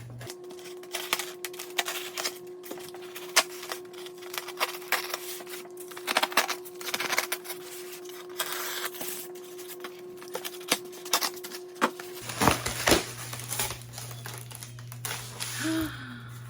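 Cardboard box and packaging of a boxed figurine being opened and handled: a busy run of scratching, crinkling and clicking for about twelve seconds, then sparser rustles and knocks.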